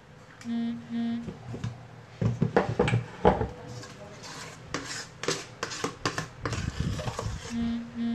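A metal spoon scraping and clanking against a stainless-steel mixing bowl as cake batter is scooped out, loudest around the middle. Two short electronic beeps from an oven sound about half a second in, and two more near the end.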